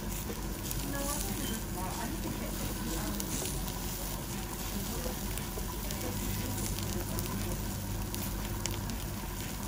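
Beef cuts sizzling on a wire-mesh grill over a charcoal fire: a steady sizzle with occasional small sharp crackles.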